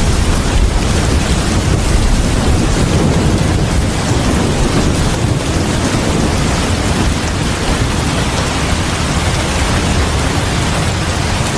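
Heavy rain pouring steadily onto a house porch and its surroundings: a dense, even hiss over a low rumble, with no let-up.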